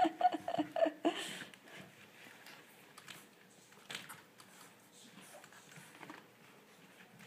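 Olde English Bulldogge puppies wrestling: a short run of pitched puppy vocalising in the first second, then soft scuffling with a few light knocks.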